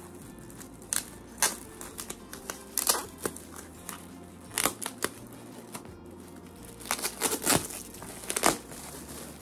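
Gift wrapping crinkling in short, irregular bursts as it is handled and opened by hand.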